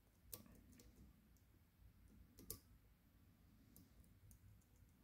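Faint, scattered clicks of a steel hook pick working the pin tumblers of a cylinder lock held under tension by a flat pry-bar tensioner, the loudest about two and a half seconds in.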